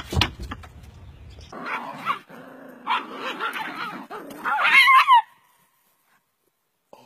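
Dog barking and yipping excitedly, the loudest high-pitched yelps coming about four and a half seconds in before it cuts off suddenly. A couple of sharp knocks come at the very start.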